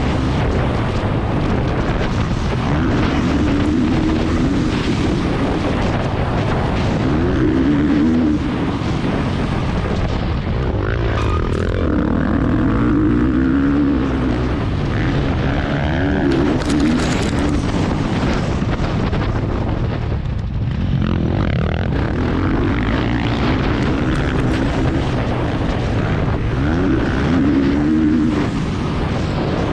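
Motocross bike engine at race pace, heard from an onboard action camera. Its note climbs again and again as the rider opens the throttle, then drops back each time he shuts off.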